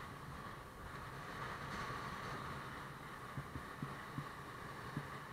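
Motorbike riding: steady engine hum and road noise, with a handful of dull low thumps in the second half.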